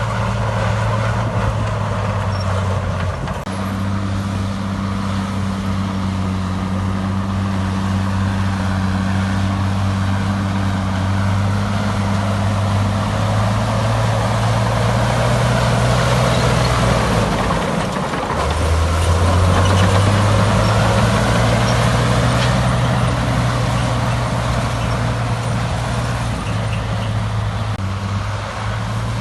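Heavy diesel engine of earthmoving equipment running steadily under load. Its pitch shifts about 3 s in and dips briefly around 18 s as the load changes, and a rougher noisy layer swells just before that dip.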